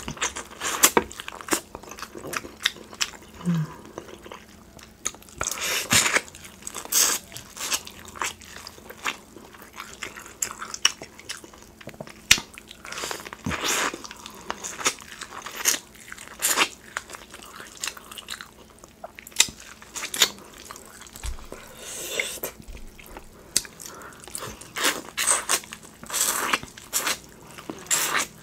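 Close-miked biting and chewing of sauce-coated corn on the cob: irregular sharp crunches and pops as the kernels are bitten off, with wet mouth sounds between them.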